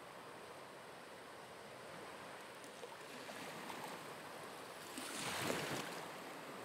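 Faint sea surf washing over rocks, a steady hiss that slowly builds, with one louder wave surging about five seconds in.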